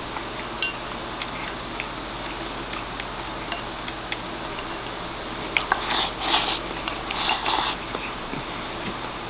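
Wooden chopsticks clicking and scraping against a ceramic rice bowl: scattered light taps at first, then a louder run of scraping between about five and a half and eight seconds in as food is scooped from the bowl.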